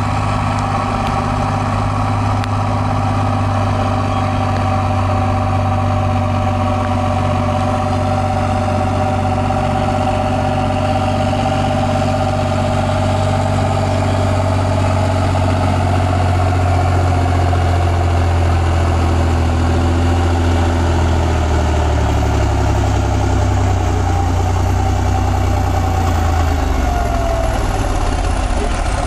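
T-150K tractor's diesel engine running at full load while pulling a sled down the track, a loud steady drone whose pitch sags over the last several seconds as the engine is lugged down by the building load.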